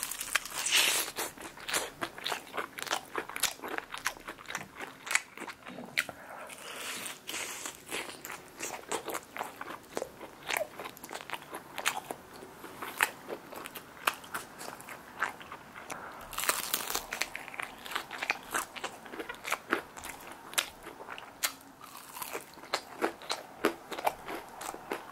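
Close-miked biting and chewing of crispy twice-fried chicken in a sticky soy glaze: a dense run of sharp crunches and crackles, with a few longer, fuller crunches.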